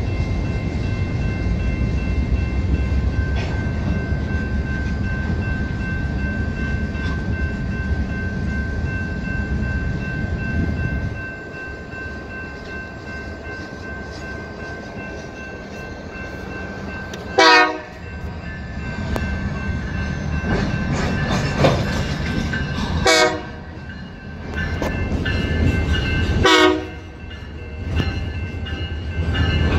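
Freight train cars rolling past a grade crossing, a loud low rumble that drops off about eleven seconds in. A diesel locomotive horn then sounds three short blasts a few seconds apart, with a fourth starting at the very end. A crossing bell's steady ringing runs underneath.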